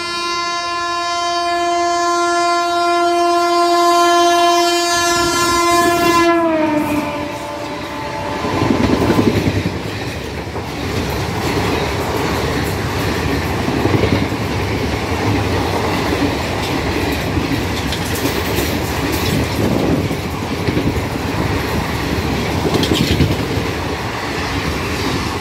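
An Indian Railways WAP5 electric locomotive sounds one long horn note as it runs through the station at speed. The pitch drops sharply about six seconds in as the engine passes. Then the express's coaches rush by with a loud clatter of wheels over the rail joints.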